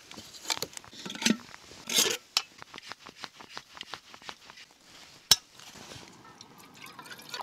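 Clinks and clatter of metal camping cookware being handled, with a single sharp click about five seconds in.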